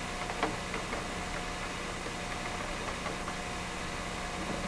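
A steady low hum with a few faint clicks in the first second.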